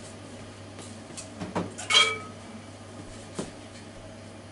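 A few light knocks and one short ringing clink of tableware being handled, over a steady low hum.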